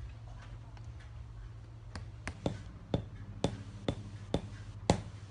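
Tok Sen massage hammer tapping on the client's shoulder: sharp knocks, roughly two a second, starting about two seconds in.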